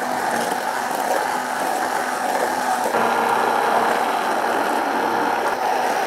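Immersion blender running steadily, puréeing a simmered tomato, pepper and spice curry sauce into a smooth curry. Its tone shifts slightly about three seconds in.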